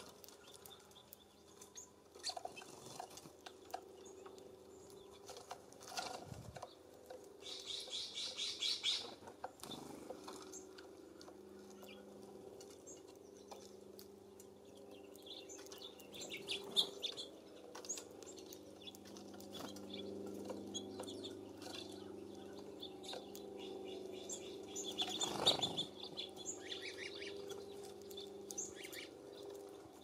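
Small songbirds calling at a feeder: scattered high chirps, a short fast trill about a third of the way in, and a brief burst of noise with more chirps near the end.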